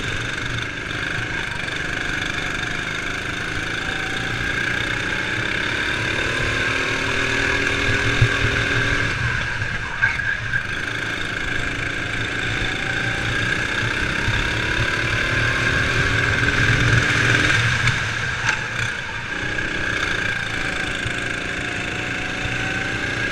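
Onboard sound of a Sodi RX7 kart's four-stroke single-cylinder engine racing at speed. The engine note rises three times as it accelerates out of corners and drops briefly in between when the throttle is lifted.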